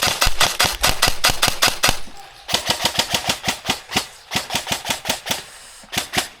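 Airsoft electric gun firing on full auto: rapid, even strings of sharp clacking shots in three bursts, a long one ending about two seconds in, another of about two and a half seconds, and a short one near the end.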